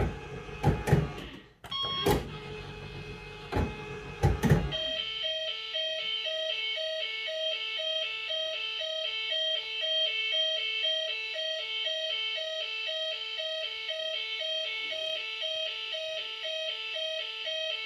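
Bellfruit Firecracker fruit machine: several sharp mechanical clicks and clunks in the first few seconds. About five seconds in, a steady electronic bleeping tune starts, a fast repeating alternation of a few notes that runs on unchanged.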